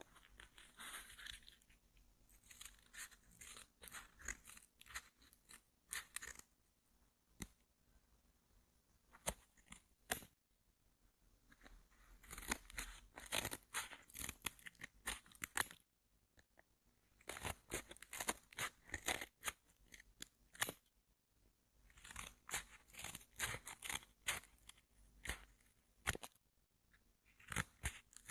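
Headphone packaging handled close to the microphone: clusters of crisp crackling and rapid clicks, coming in groups a few seconds long with short pauses between.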